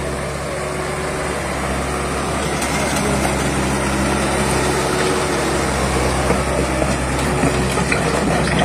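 Bobcat skid-steer loader's diesel engine running steadily, growing louder as the machine works close by.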